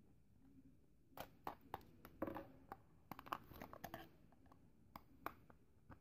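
Faint plastic clicks and scrapes of a screwdriver against a hollow plastic toy grenade as it is turned in the hand: a close cluster of sharp clicks for about three seconds, then two more single clicks.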